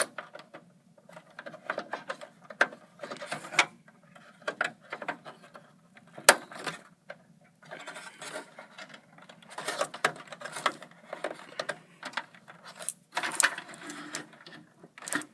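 Clicks, scrapes and rattles of hands fitting a DDR2 memory stick into a slot inside a desktop computer case, with a sharp click about six seconds in.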